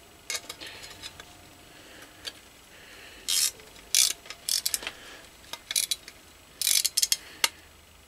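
Ratchet spanner clicking in several short quick bursts as it tightens nuts on brass SMA bulkhead connectors in a copper plate, with a few lighter metal clinks of tools and parts before the ratcheting starts.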